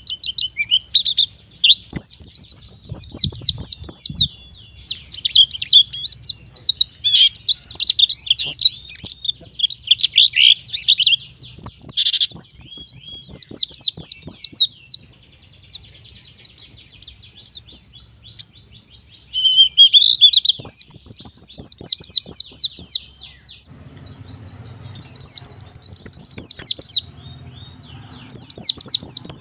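White-eye (pleci) singing hard: long runs of rapid, high, twittering notes, broken by a few short pauses.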